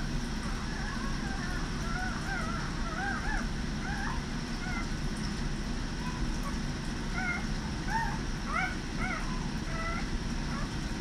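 Newborn Vizsla puppies squeaking and whimpering while nursing: many short, high squeaks that rise and fall, coming in quick little clusters.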